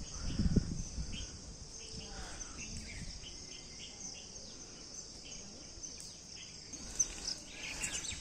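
Insects chirping in a steady high-pitched chorus, with short chirps repeating over it. A few low thumps come in the first second.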